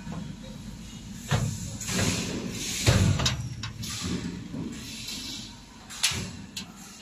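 White sheet-metal door panel of a steel parcel locker being handled and fitted to its frame: metal knocks and scrapes, the loudest knock about three seconds in and another about a second before the end.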